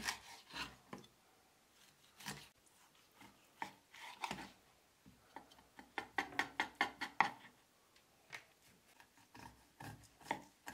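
Large kitchen knife cutting and scraping through raw bonito on a wooden cutting board: irregular strokes, with a quick run of short strokes midway.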